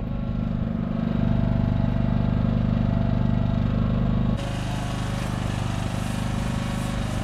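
A small engine running steadily at constant speed. About four seconds in the sound changes abruptly, becoming a little quieter and more hissy.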